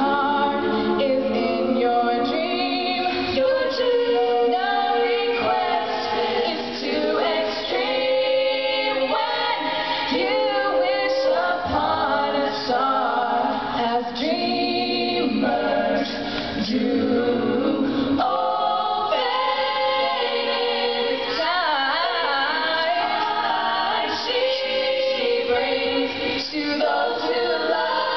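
A small student vocal group, women and a man, singing together into handheld microphones, several voices at once in harmony.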